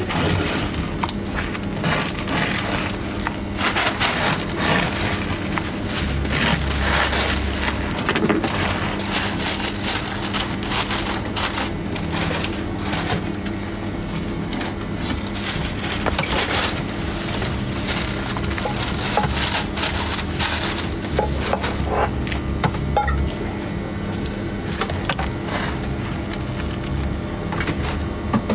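A knife sawing through crusty bread rolls: many short, sharp crunching scrapes of the crust. Background music with a steady bass line plays throughout.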